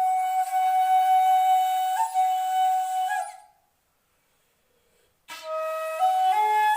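Homemade D-sharp shakuhachi played solo. A long held note with slight pitch bends fades out, and after a short gap a lower note comes in and steps upward twice.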